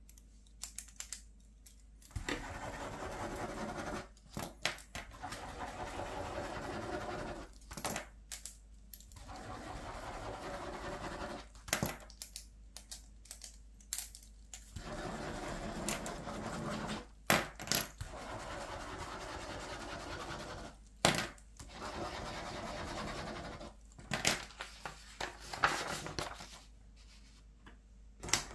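Plastic ballpoint pens scribbling loops on paper over a clipboard, in repeated stretches of scratchy writing two to three seconds long. Sharp clicks and clinks of plastic click pens being handled fall between the stretches.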